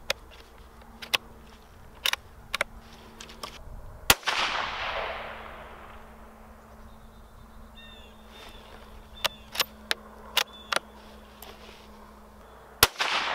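Two shots from a .17 HMR bolt-action rifle (Rossi RB17), about nine seconds apart, each followed by a long echo that fades over a couple of seconds. Sharp metallic clicks between the shots come from the bolt being worked.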